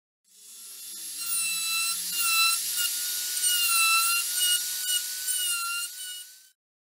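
Handheld rotary tool with a diamond burr whining at high speed as it grinds notches into the rim of a red carob wood vase. The pitch wavers slightly as the burr bites, and the sound swells over the first second and cuts off near the end.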